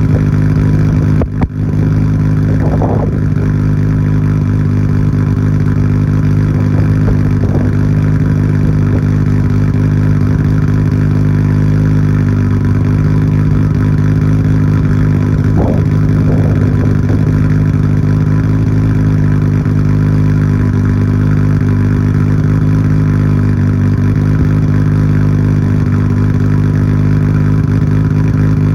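Nissan Skyline GT-R R34's RB26DETT twin-turbo straight-six idling steadily during warm-up after a cold start, heard through a TOMEI Expreme Ti titanium exhaust with its silencer insert fitted.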